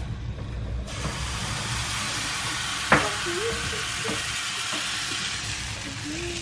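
Kefir pancake batter sizzling in a hot frying pan, starting abruptly about a second in as the batter is poured and then hissing steadily. A single short click about three seconds in.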